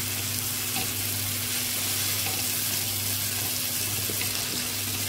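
Chopped onions, tomatoes and ginger-garlic frying in oil in a nonstick pan, a steady sizzle as they are stirred with a spatula. A steady low hum runs underneath.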